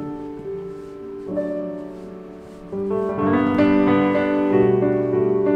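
Background music led by piano: slow, held chords that grow fuller and louder about three seconds in.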